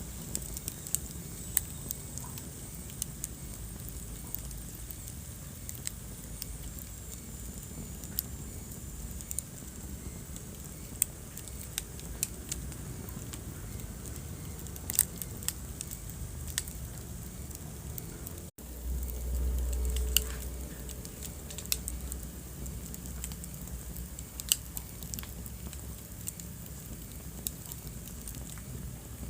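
Wood fire burning in a fireplace: a steady low rumble and hiss with irregular sharp crackles and pops. About two-thirds through the sound drops out for an instant, then a louder low rumble runs for a couple of seconds.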